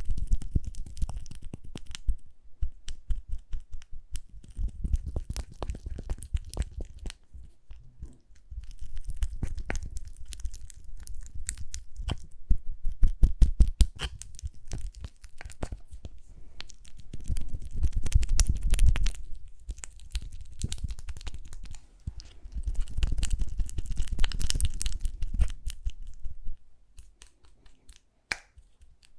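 Close-miked lip balm ASMR sounds: dense sticky crackling, clicking and scraping in bursts of a few seconds with short pauses, thinning to a few scattered clicks near the end.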